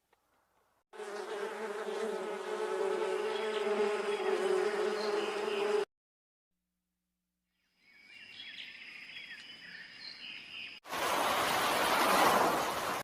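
Bee buzzing steadily for about five seconds, a pitched hum that cuts off suddenly. After a pause comes a faint clip with a few high chirps, then a loud, even rush of noise near the end.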